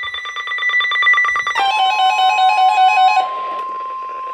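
Emergency alert tones for a severe thunderstorm warning: rapid electronic beeping, then about a second and a half in the steady, single-pitch warning alarm tone of a National Weather Service alert begins. A warbling beep pattern sounds over that tone for another second and a half.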